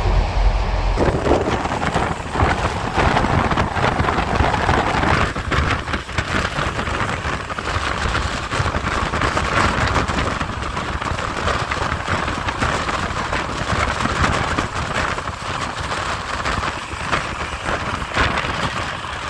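Wind rushing past and buffeting the microphone held out of the open window of a moving train, over the train's running noise. It starts about a second in, as the low hum inside the coach gives way to it, and stays steady.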